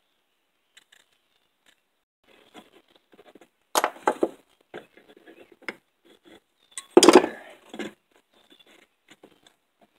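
Chainsaw recoil starter being reassembled by hand: the pulley and its wound spring are worked into the housing, giving scattered clicks and scrapes with two louder clatters, one about four seconds in and a bigger one about seven seconds in.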